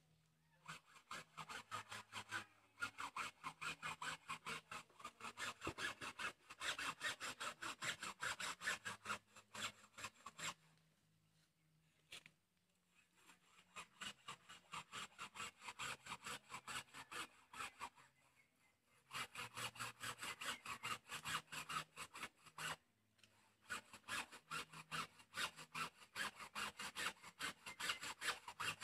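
Hacksaw cutting through a bamboo pole, quick back-and-forth rasping strokes in several runs with short pauses between them.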